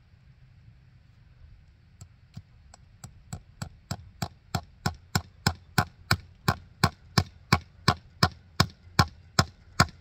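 Hammer driving a fence staple into a wooden fence post to hold barbed wire: a steady run of about two dozen sharp knocks, about three a second. They start about two seconds in and grow louder over the first few strikes.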